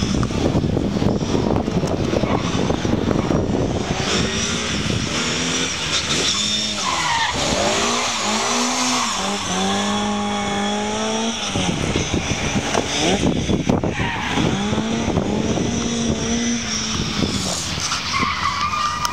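Rally car engine being driven hard round a tight circuit, its revs climbing and dropping several times through the gears, with tyres squealing as it slides through the bends.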